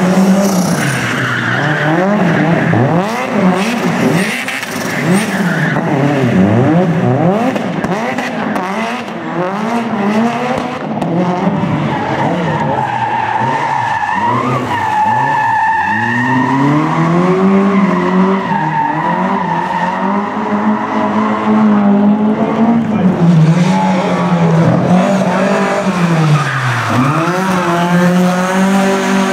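Rally car engine revving hard, its pitch rising and falling again and again as the driver works the throttle through a drift display, with tyres squealing and skidding, most clearly around the middle.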